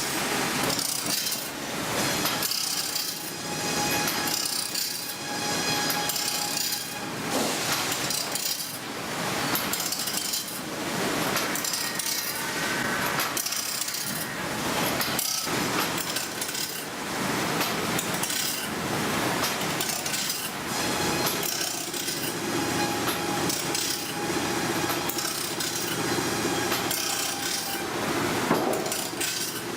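Automatic bandsaw blade sharpener grinding the blade's teeth one after another: a rhythmic grinding stroke about once a second over a steady hiss of the wheel.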